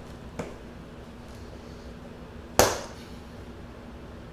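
Scissors cutting into the packing of a cardboard shipping box: a faint click about half a second in, then one loud, sharp snap a little past halfway.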